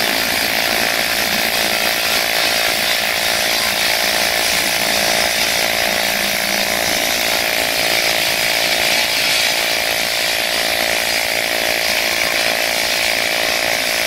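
AC TIG welding arc on aluminum pipe, buzzing steadily with a constant hiss while the bead is laid by dabbing filler rod into the puddle.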